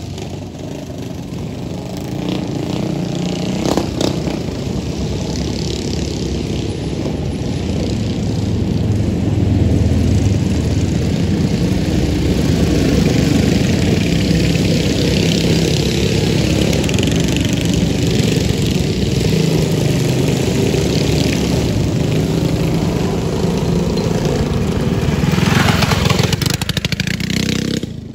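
Small mini bike engines running and revving, building up over the first several seconds and holding loud, with a surge near the end before dropping off.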